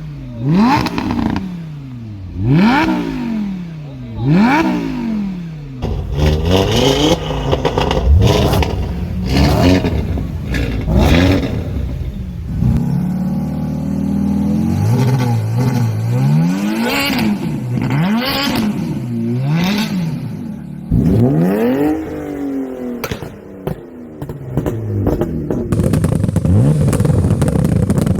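A motor vehicle's engine revved up and down over and over, its pitch climbing and falling about once a second, with stretches of rougher clattering and crackle between the revs.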